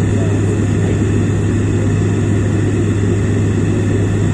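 Cabin noise inside a Bombardier Dash 8 Q400 turboprop on approach: a steady low propeller drone over a constant rush of engine and airflow noise.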